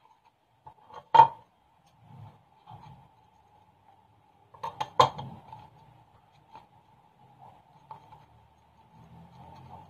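A bottle and a small plate knocking and clinking as they are handled: one sharp knock about a second in, and a quick cluster of knocks about five seconds in, with small rustling handling noises between and a faint steady hum underneath.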